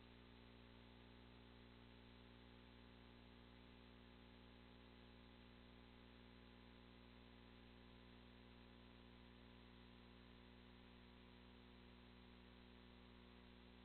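Near silence: a faint, steady electrical hum with low hiss, unchanging throughout.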